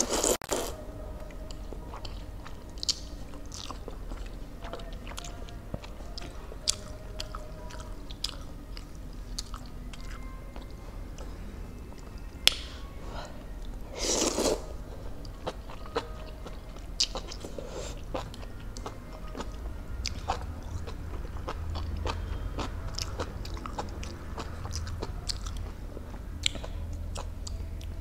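Close-up eating sounds: a loud slurp of Korean noodles at the start and another about halfway through, with wet chewing and scattered small crunches and clicks in between.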